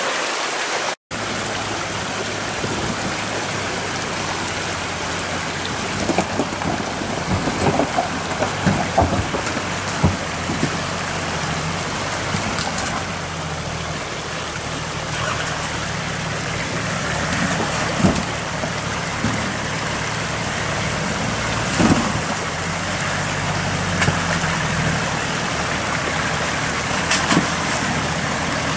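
Off-road SUV engines running at low revs as the vehicles crawl up a rocky stream bed, over the steady rush of the mountain stream. Scattered knocks and splashes break through now and then.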